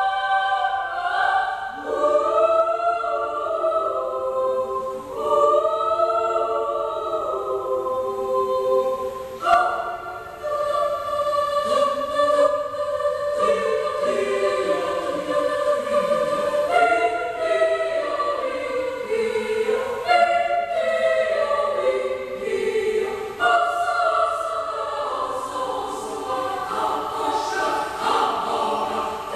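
Children's choir singing in parts, holding long notes and moving through a melodic phrase.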